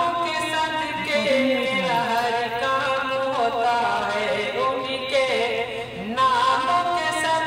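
A solo male voice singing an Urdu naat into a microphone, drawing out long, ornamented notes that bend up and down.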